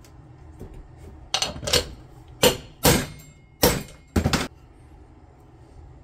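A brass hammer taps a bushing driver about six times over roughly three seconds, in sharp metallic strikes. It is driving the new pump bushing of a 4L60E transmission pump in a little below flush.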